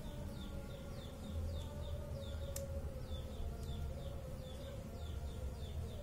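A single sharp metallic click about two and a half seconds in, from a hand tool on the parts of a spinning reel being dismantled by hand. Behind it runs a steady low hum and a high chirping call that repeats two to three times a second.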